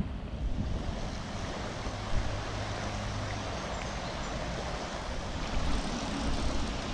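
Steady rush of flowing river water, with some wind on the microphone.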